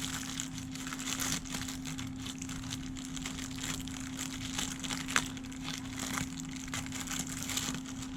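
Plastic packaging crinkling and rustling as it is handled, with scattered sharp clicks, one louder about five seconds in, over a steady low hum.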